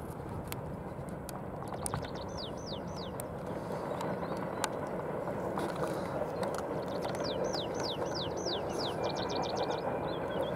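Steady distant rumble of a heavy freight train worked by VL11M electric locomotives, slowly growing louder. A bird sings two runs of quick descending whistled notes over it, and a thin high tone comes in near the end.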